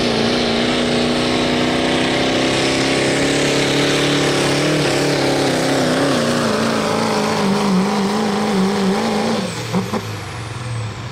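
Turbocharged diesel pickup engine at full throttle under heavy load, dragging a pulling sled, its pitch wavering and sagging slightly as the truck slows. About nine and a half seconds in the throttle is released and the engine drops quickly to a low idle as the pull ends.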